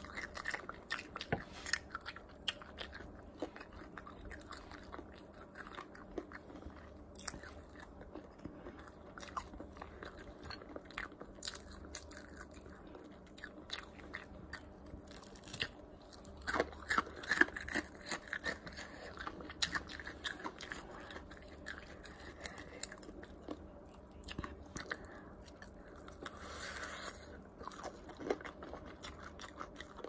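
Biting and chewing of sauce-covered Popeyes fried chicken, with crunching of the breaded skin as many sharp crackles. The densest, loudest crunching comes a little past halfway.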